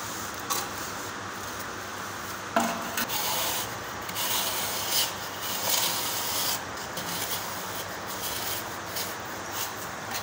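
A wooden straight edge rubbed and scraped along a freshly cement-plastered wall, levelling the plaster, in irregular rasping strokes, with one sharp knock about two and a half seconds in.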